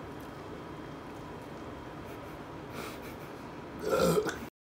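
A man's long, croaking burp near the end, with faint room noise before it: carbonation from gulping cola coming straight back up. It cuts off suddenly.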